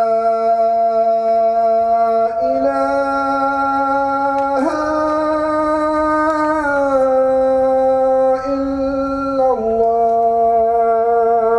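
A man's voice calling the adhan, the Islamic call to prayer, into a microphone. It is sung as one long unbroken melismatic line that steps up in pitch twice and then steps back down to its starting note near the end.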